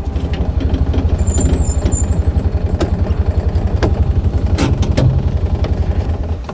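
A vehicle engine idling, with a steady low pulsing and a few sharp clicks in the middle. It cuts off abruptly near the end.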